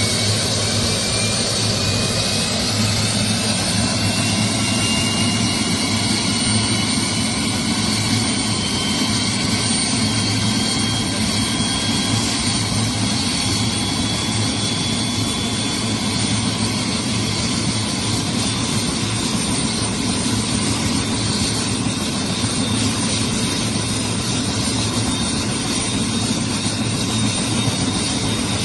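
Helicopter turbine engine running steadily, with a high whine that climbs slowly in pitch over the first dozen seconds as it spools up.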